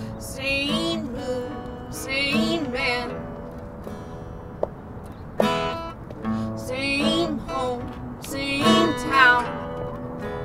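Live band music: an acoustic guitar strummed under a melody line that comes in four short phrases, with a single sharp click about four and a half seconds in.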